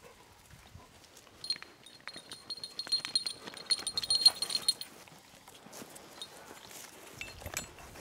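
Alano hunting dogs moving about close by, with scuffling and clicking steps and a high, thin, steady whine lasting about three seconds from about a second and a half in.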